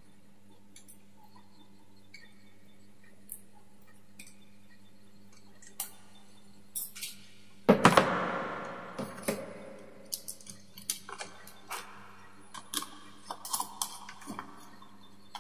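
Hand tools and electrical wires being handled: scattered small clicks and taps, with one louder metallic knock about eight seconds in that rings briefly, then a run of quick small clicks. A faint steady hum underlies it.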